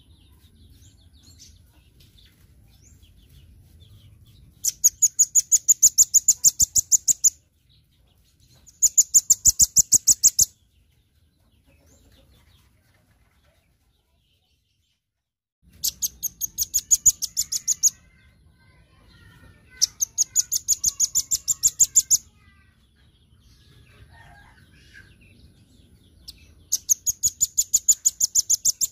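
Velvet-fronted nuthatch (rambatan paruh merah) singing in rapid trills of sharp, high notes, about ten a second. It sings five bursts of one and a half to two and a half seconds each, with pauses between.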